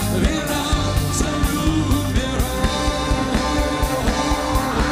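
A live pop-rock band playing a song with a steady drum beat, electric guitar and keyboards, and a lead singer's voice over it.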